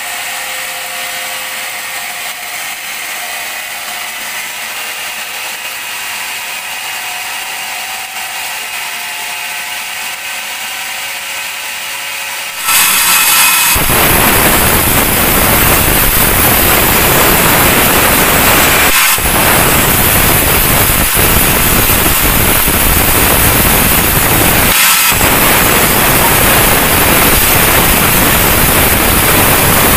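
Band sawmill running without a cut, a steady mechanical hum. About twelve seconds in the blade bites into a teak log and a loud, steady sawing noise takes over, dipping briefly twice.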